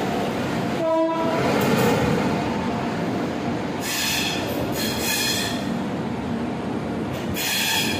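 Passenger coaches of an arriving express train rolling slowly past, with a steady rumble and three high-pitched metal-on-metal squeals from the wheels, around four seconds in, just after, and near the end, as the train slows. A brief hooting tone sounds about a second in.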